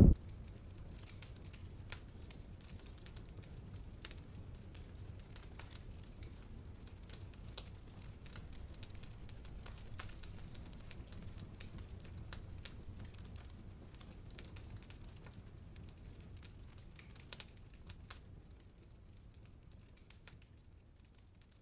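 Wood campfire crackling, with scattered sharp pops over a low steady rumble, fading out near the end.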